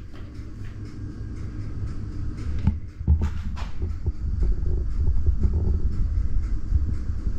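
Wooden spoon working thick banana bread batter in a glass bowl, with a few soft scrapes and clicks over a steady low rumble that grows louder about three seconds in.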